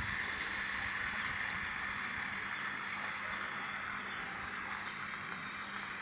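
Steady outdoor background noise: an even hiss with a faint steady low hum underneath and no distinct calls or knocks.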